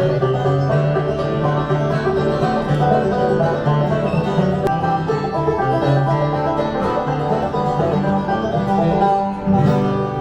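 Bluegrass-style music with banjo and other plucked strings, playing steadily.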